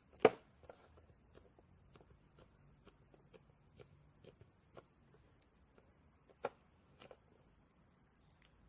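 Light handling noises: a sharp knock about a quarter second in, then scattered soft taps and clicks, with another knock about six and a half seconds in and a smaller one a moment later.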